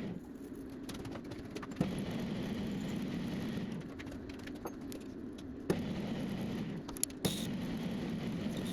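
Metal lathe running with a steady hum that eases off twice and comes back, with a few sharp metallic clicks and clinks from the work.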